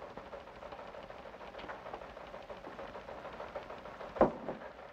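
Quiet steady hiss with one sharp knock about four seconds in.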